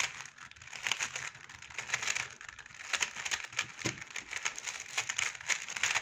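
Stickerless plastic speedcube being twisted quickly by hand to scramble it: a steady stream of quick plastic clicks and clacks as its layers turn against each other.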